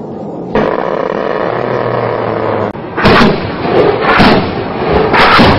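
Weapons fire in combat footage: after a couple of seconds of steady noise, three loud blasts go off about a second apart in the second half.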